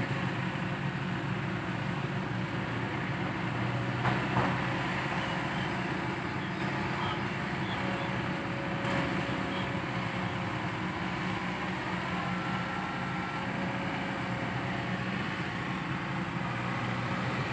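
Kobelco SK200-8 Super XM excavator's diesel engine running steadily, with two short knocks about four seconds in.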